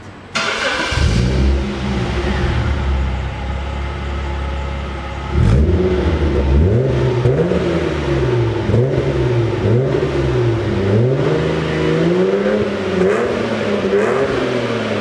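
1995 Jaguar XJR X300's supercharged 4.0-litre straight-six, heard through a stainless steel sport exhaust. It fires up about half a second in and settles to a steady idle. From about five seconds in it takes a run of short throttle blips, roughly one a second, each rising and falling back.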